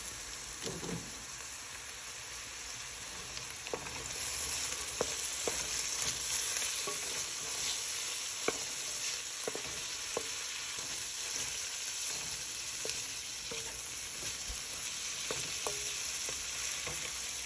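Onions, grated carrots and chopped green capsicum frying in oil in a kadhai: a steady sizzle that grows louder about four seconds in, with scattered light knocks and scrapes of a wooden spoon stirring against the pan.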